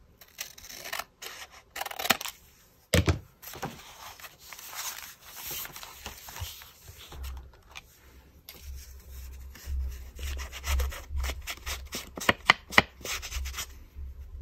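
Scissors snipping the edge off a paper card, then the card rubbing and rustling as it is handled on a cutting mat, with a run of sharp clicks near the end.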